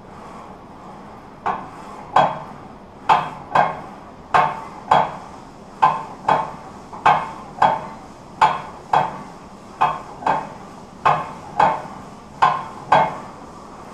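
Plate-loaded leg press machine clanking metal on metal as it is worked through reps, two clanks to each rep, about nine reps at a steady pace.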